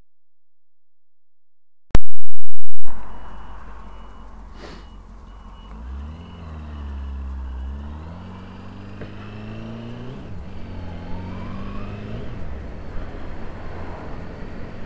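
A motorcycle engine and wind rush heard from a camera on the moving bike. The engine note rises and falls as the rider goes through the revs, and the wind noise builds toward the end. About two seconds in, after a silent start, comes a short, very loud distorted burst.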